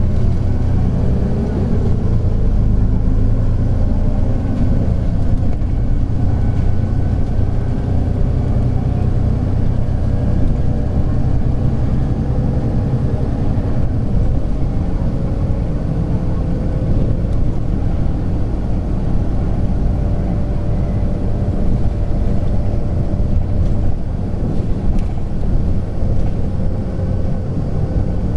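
Hino P11C straight-six diesel of a 2001 Hino Blue Ribbon City non-step city bus running under way, heard from inside the cabin. A deep steady rumble, with the engine note drifting gently up and down as the bus drives. A half-open window lets the engine sound in directly.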